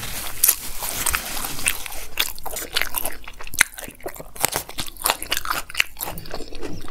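Close-miked chewing of crispy fried cauliflower pakoras: a string of irregular, crisp crunches and mouth sounds, with a bite into a raw green chili partway through.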